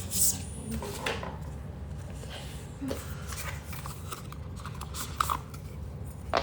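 Packaging being handled during an unboxing: scattered rustles and small clicks of paper and cardboard, over a steady low hum.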